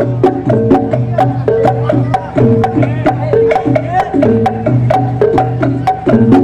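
Traditional Javanese gamelan-style music of the kind that accompanies tiban. A quick, even clicking beat runs over a repeating melody of pitched notes and a steady low tone.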